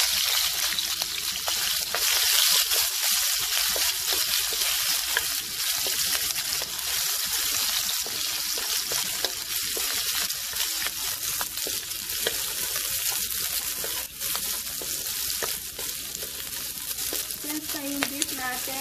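Sliced onions sizzling as they sauté in hot oil in a nonstick wok, with a steady frying hiss and small ticks and scrapes as a wooden spatula stirs them.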